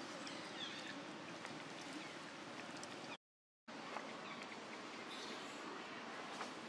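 Outdoor ambience: a steady background hiss with a few faint high chirps about half a second in. The sound drops out to complete silence for about half a second around three seconds in, at an edit cut.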